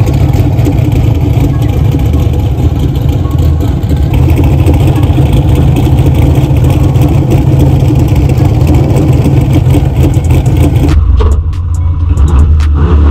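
Twin-turbo manual car's engine running steadily and loudly with a choppy, crackling edge. About eleven seconds in the sound turns deeper and duller.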